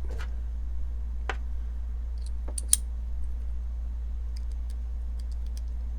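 Scattered small clicks and taps as a screwdriver with a Torx bit and the knife's metal parts are handled, with one sharper click about two and a half seconds in. A steady low hum runs underneath.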